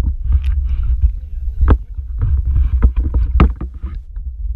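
Underwater sound picked up by a waterproof action-camera housing held just below the sea surface: a heavy, steady low rumble of moving water against the housing, broken by several sharp clicks and splashes.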